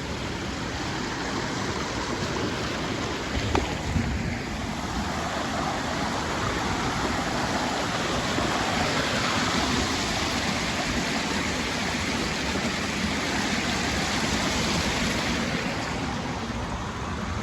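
Steady rushing of water from a waterfall and creek. There are a couple of short knocks about three and a half to four seconds in.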